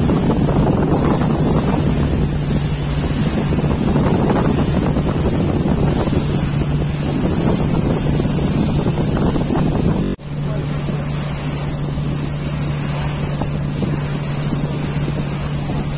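Steady engine hum of a passenger river vessel under way, mixed with wind buffeting the microphone and water rushing in the wake along the hull. About ten seconds in the sound drops out for an instant, then the engine hum carries on with less wind and water noise.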